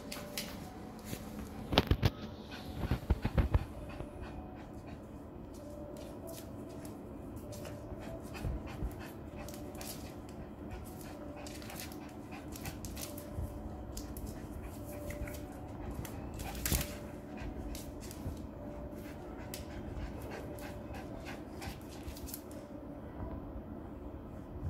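A small Maltese dog panting, with scattered short clicks throughout and a cluster of loud knocks about two to three seconds in.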